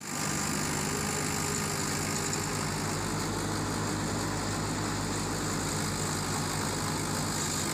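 Mahindra tractor's diesel engine running steadily at a constant speed, driving a paddy thresher that is being fed rice sheaves.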